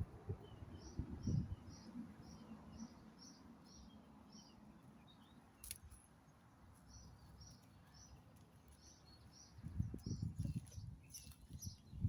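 A bird chirping outdoors: a short high note repeated about three times a second, in two runs separated by a pause. Low rumbles, like wind on the microphone, come in near the end.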